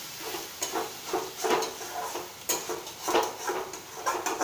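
Metal spoon scraping and knocking irregularly against a steel pan as snail curry is stirred, over a low sizzle from the pan.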